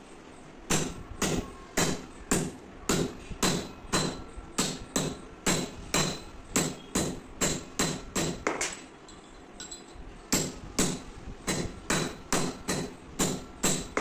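Hand hammer striking steel on a steel block, about two blows a second with a bright metallic ring, forming a steel strip into a round eye around a rod. The blows pause for about a second and a half past the middle, then carry on.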